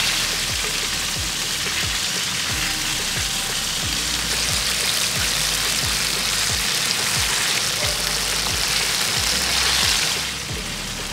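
Chicken breasts frying in a large pan: a steady sizzling hiss that eases off near the end. Background music with a steady low beat plays underneath.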